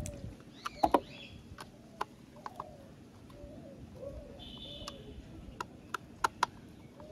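Scattered light clicks and taps of a plastic toy car body being handled, with a bird cooing in the background.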